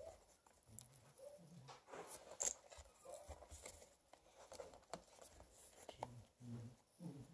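Faint rustling, scratching and small clicks as a newborn piglet roots its snout against a bag and paper on a wooden floor, with a sharper click about two and a half seconds in. A few short, soft low grunts come in between.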